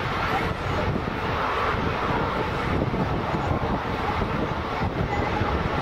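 Airbus A380 jet engines running loud and steady as the airliner rolls down the runway, a deep, continuous rumble with a hissing top that holds level throughout.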